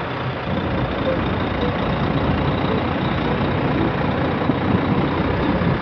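Heavy diesel engine of a Volvo tractor unit running steadily close by.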